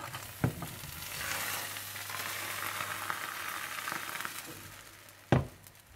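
Paratha and beaten egg sizzling in butter on a hot tawa. The sizzle swells after about a second and fades toward the end, with a short click about half a second in and a knock near the end.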